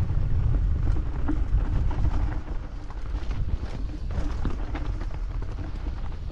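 Mountain bike riding downhill on a rocky dirt trail: wind rumbling on the microphone, with the tyres rolling over loose stones and the bike rattling in many small knocks.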